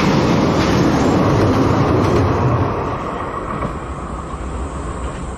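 Moka Railway train crossing the river bridge, a steady loud rail rumble that fades away over the second half.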